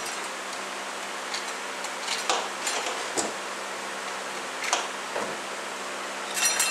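Occasional light metallic clinks as the overdrive clutch frictions and steel plates are slid out of a 42LE transmission's input clutch retainer, over a steady low hum.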